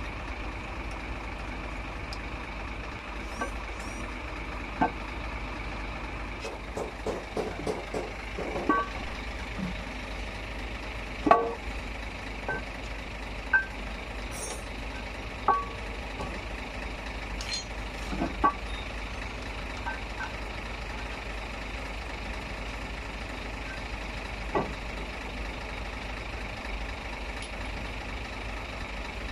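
Scattered metal clinks and knocks from hand work at a MAN TGS truck's flywheel and clutch, with a quick run of clinks about eight seconds in, over a steady mechanical hum.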